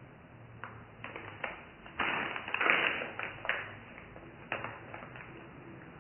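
Clear plastic bag crinkling and crackling as a gloved hand handles it and sets it down, with the small rock pieces inside shifting. The crackles come in quick irregular clicks, thickest and loudest between two and three seconds in, then a few scattered ones.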